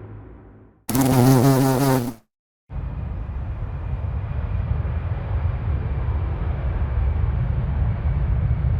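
A run of cinematic sound effects. A rumble fades out, then a loud, wavering buzz lasts about a second and cuts off. After a short silence, a steady low rumbling drone with faint high tones comes in.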